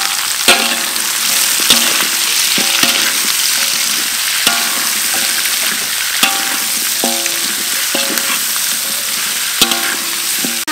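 Sliced onions sizzling in a hot metal wok as a metal spatula stirs them, striking and scraping the wok about once a second. Each strike leaves a short metallic ring from the wok.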